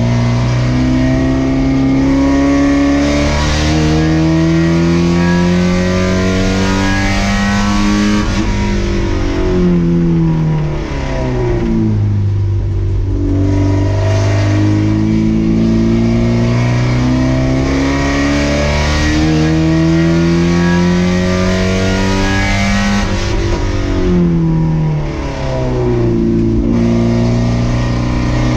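Race car engine heard from inside the cockpit, pulling hard with its pitch rising over long stretches. It drops in pitch twice as the car slows, about nine seconds in and again about twenty-three seconds in.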